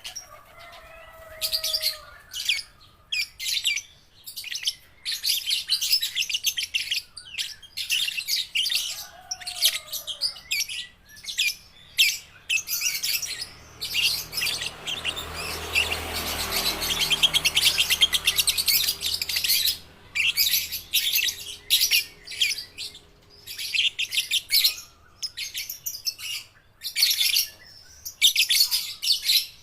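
Young lovebirds chirping in quick, high-pitched chattering runs broken by short pauses: juveniles still learning their song. A faint low hum sits under the chirping partway through.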